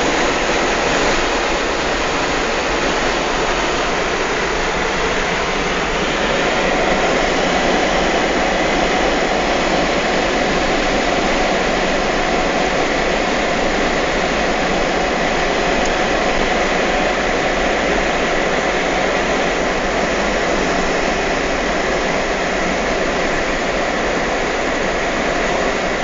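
Steady rush of wind and tyre noise in a moving car, with no engine note standing out.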